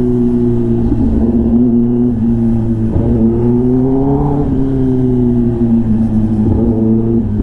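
Kawasaki ZX-10R inline-four engine running under way through an SC-Project exhaust, its note rising about halfway through as the throttle opens, then easing back down.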